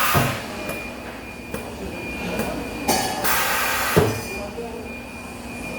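Spot welding work: two short bursts of hissing noise about three seconds apart, and a sharp metallic clank about four seconds in.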